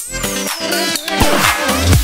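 Electronic dance music. The kick drum drops out for a short break with a high falling sweep, and the bass and beat come back in right at the end.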